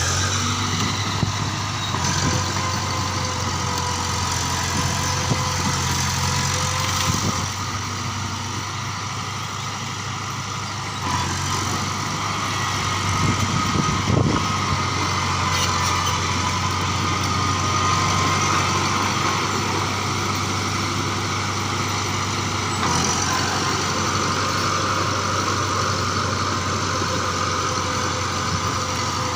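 Bulldozer's diesel engine running steadily, its note shifting slightly about eleven seconds in and again a little past two-thirds of the way through.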